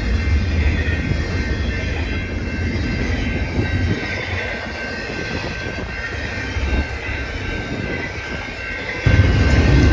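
Freight train rolling past: a heavy low rumble with a thin steady ringing note above it. The rumble eases about four seconds in and comes back suddenly near the end.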